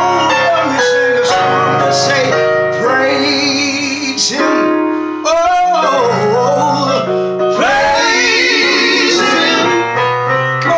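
Men's gospel vocal group singing in harmony, with a high lead voice holding long notes with vibrato over steady lower parts.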